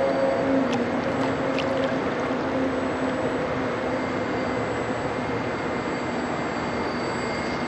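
Steady rushing wind noise on the microphone, with the low steady hum of a 3D-printed RC jet boat's brushless motor and jet pump running.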